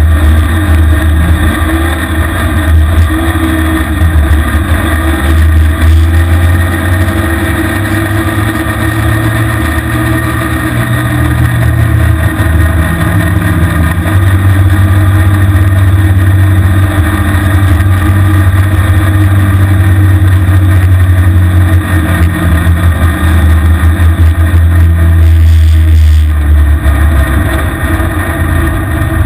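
Small off-road vehicle's engine running under way at road speed, loud and close. Its pitch rises and falls a few times in the first seconds, then holds fairly steady and a little louder through the second half.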